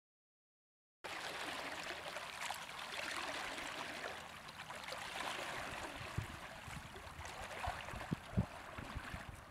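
Running water of a small stream, an even rushing and trickling that starts about a second in after silence, with a few soft low thumps near the end.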